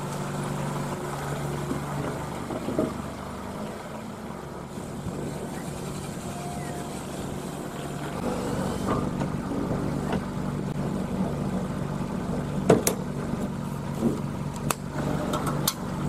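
A vehicle engine idling steadily, with a few sharp clicks in the second half.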